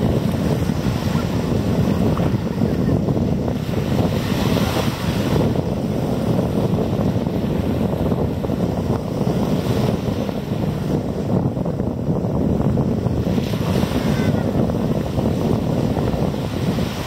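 Wind buffeting the microphone over a steady rush of surf, with brighter swells of hiss every four to five seconds as waves wash in.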